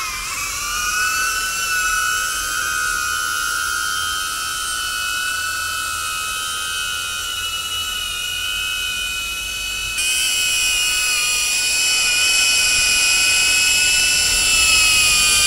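DJI Avata FPV drone's motors and stock propellers running after spinning up, giving a steady high-pitched whine with several tones over a hiss of prop wash. It gets louder about ten seconds in.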